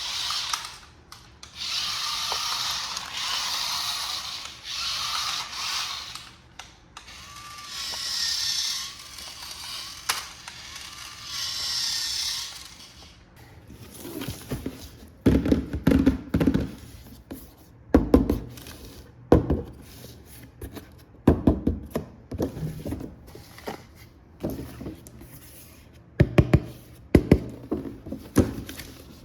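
A toy RC car's small electric motor whirring in several bursts of a few seconds each, its pitch wavering. From about halfway, irregular sharp knocks and thumps of plastic being handled or bumping.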